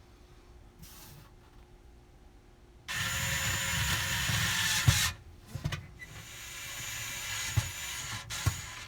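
Electric screwdriver driving in the screws of a new oven heating element, in two runs: one of about two seconds starting about three seconds in, then a second that builds up gradually, with a few small knocks in between.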